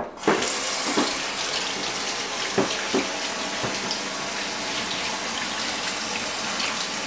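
Kitchen tap running steadily, with a few knocks in the first three seconds.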